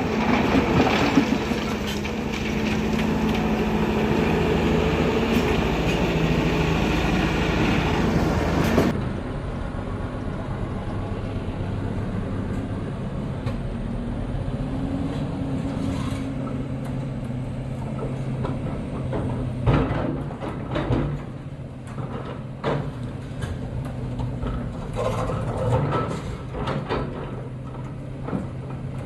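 Heavy diesel construction machinery running steadily, with scattered metallic clanks and knocks. The sound changes abruptly about nine seconds in.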